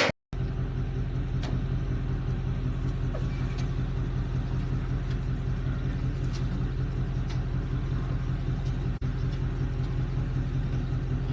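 Vehicle engine running steadily with an even low hum and a few faint clicks.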